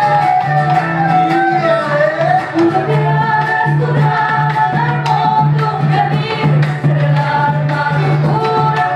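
Live folk band playing: voices singing a melody over acoustic guitar, violin and a large bombo drum keeping a steady beat.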